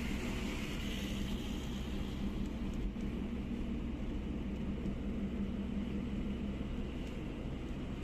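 Bus engine and road noise heard from inside the moving bus: a steady low drone with an even rushing of tyres and wind.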